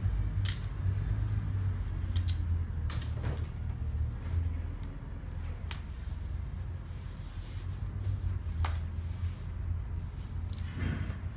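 Paperboard handling: a few sharp clicks and taps as a glued panel is set and pressed by hand against a paperboard box, over a steady low hum.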